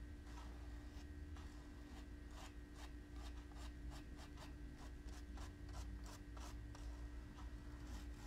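Paintbrush flicking short strokes of paint onto burlap, a faint, regular series of dry scratches, about three a second.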